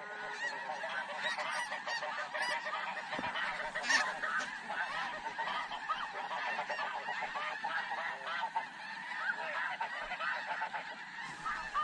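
A large flock of snow geese calling, a dense continuous chorus of many overlapping honks.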